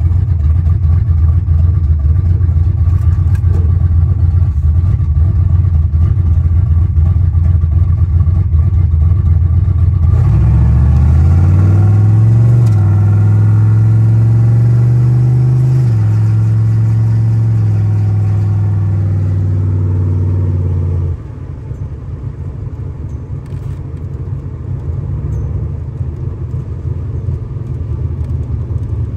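Car engine heard from inside the cabin: running steadily at low revs, then about a third of the way in it accelerates hard, the pitch climbing and dropping back twice as it shifts up. About two-thirds in the driver lifts off and the engine drops to a quieter, steady cruise.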